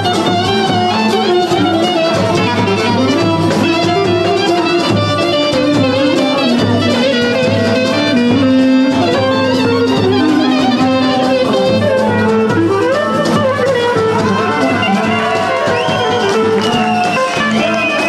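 Instrumental music, with a wind instrument carrying a held, gliding melody over a steady accompaniment.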